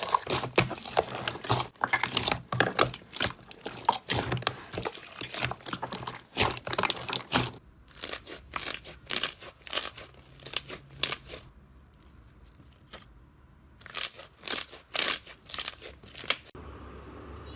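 Slime being worked and pressed, with dense crackling and popping that thins out halfway, pauses briefly, then returns in a short cluster. Near the end the crackling gives way to a steady low hum.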